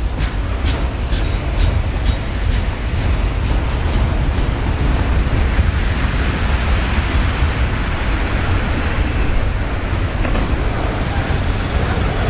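Autorack freight cars rolling past close by, a steady loud rumble and rush of steel wheels on rail, with a run of regular wheel clicks over the rail joints in the first few seconds.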